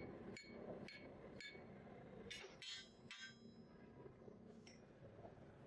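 Faint metal clinking from iron bar work: a run of light quick taps, about three a second, then three ringing metal clinks in quick succession a little over two seconds in, and one fainter clink later.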